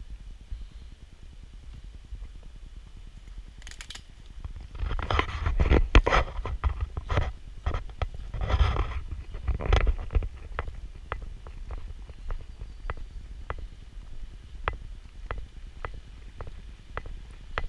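Footsteps on a paved path, a little under two steps a second, over a low rumble on the body-worn camera's microphone. Near the middle comes a louder spell of rustling and knocks, about five seconds long.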